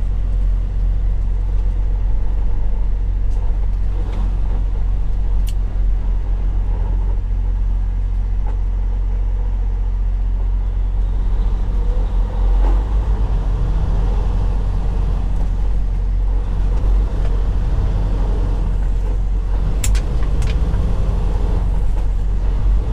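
Freightliner Cascadia semi truck's diesel engine and road noise heard from inside the cab: a steady low rumble while driving. The engine note shifts about halfway through, and a couple of brief clicks stand out.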